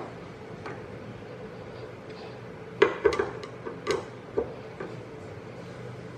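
Screwdriver clicking on the small screws that hold a high-power LED to an aluminium heatsink as they are tightened: a cluster of sharp clicks about three seconds in and a few more around four seconds, over a faint steady hum.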